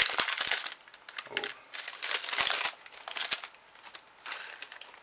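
Foil booster-pack wrapper of Topps Star Wars Force Attax trading cards crinkling and rustling in gloved hands as the cards are pulled out, in irregular bursts.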